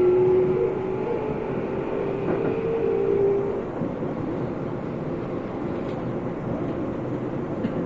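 Keio 8000 series electric train heard from inside a motor car: the Hitachi GTO-VVVF inverter and induction motors hum steadily over the rumble of the wheels on the rails. The hum fades out about three and a half seconds in, leaving only the rolling rumble as the train runs slowly.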